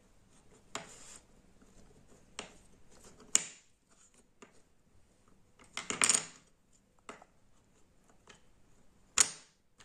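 Wooden jigsaw puzzle pieces clacking against each other and a wooden tabletop as they are slid and pressed into place: a handful of separate sharp clicks and knocks, with a small cluster about six seconds in.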